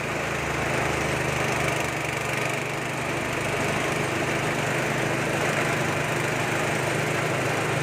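Small Nishikawa stationary engine running steadily at an even speed, driving a peanut grinding mill.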